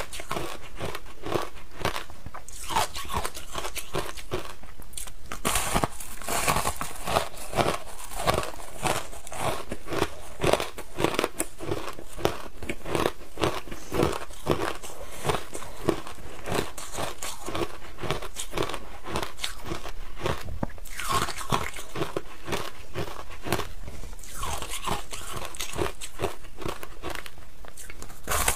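A slab of frozen shaved ice with matcha powder crunching as it is bitten and chewed: a steady run of crisp crunches.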